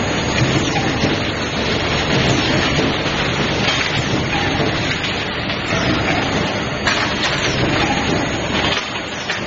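Automatic hex nut forging line running: a loud, steady, dense clatter of machinery with many fine ticks and rattles.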